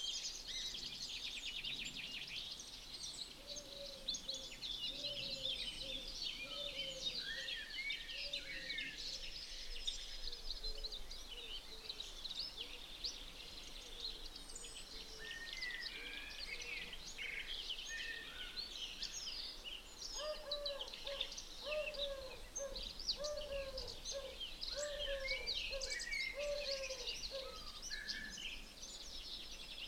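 Several songbirds singing at once: a dense chorus of high chirps and trills, with a lower bird repeating a short note in two runs of about ten notes each, over a faint low rumble.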